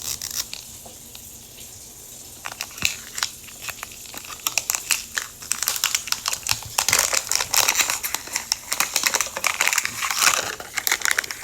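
Crinkly plastic packaging of Mini Brands toy capsules being handled and opened: a dense crackling with many small clicks. It starts sparse and becomes busier and louder about six seconds in.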